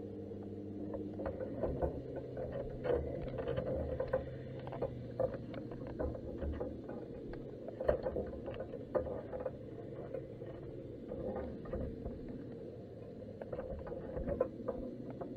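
Underwater sound picked up by a camera sitting on the seabed inside a crab pot: a steady low hum, dropping to a different pitch about a second and a half in, under frequent irregular faint clicks and crackles.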